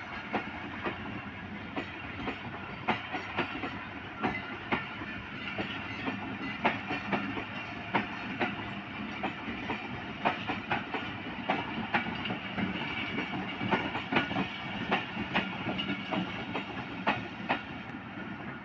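Passenger coaches of a departing train rolling past close by: a steady rumble of wheels on rail with sharp clicking as the wheels cross rail joints, several clacks a second.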